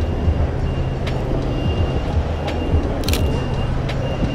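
Steady low rumble of city street traffic, heavy vehicles running close by, with a few faint sharp clicks and a brief high hiss near the end.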